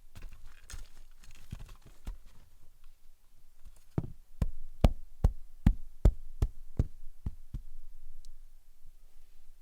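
A run of about ten sharp knocks at an even pace, two to three a second, with scattered lighter knocks and rustling before it.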